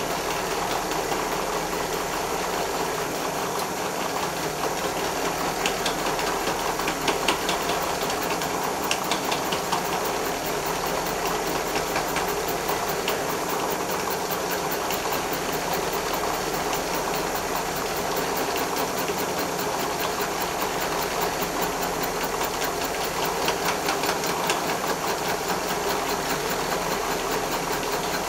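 Milling machine running with its cutter steadily facing off the hard weld build-up on a malleable cast-iron axle ring, a continuous cutting noise at an even level. The weld has hardened the iron, so the cut throws sparks and smoke.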